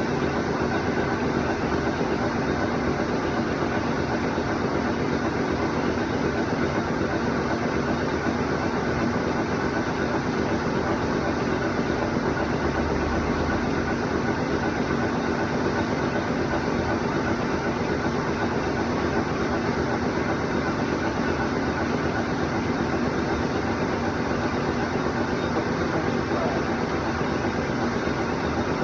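CNC machine running a steady cut, a continuous even mechanical noise with a low steady hum that does not change.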